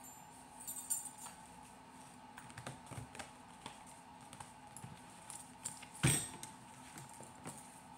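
Tarot cards shuffled by hand: a run of light card flicks and clicks, with a louder knock about six seconds in.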